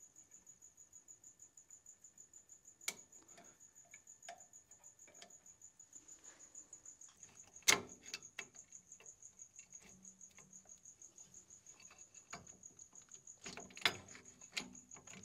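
A cricket chirping steadily, about four high pulses a second, with scattered sharp clicks and clinks of rear brake shoe and emergency-brake spreader hardware being fitted by hand; the loudest click comes about halfway through.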